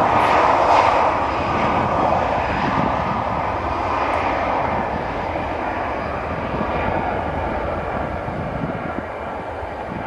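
Twin turbofan engines of a rear-engined business jet at takeoff power as it departs, a loud jet roar that fades steadily as the aircraft moves away.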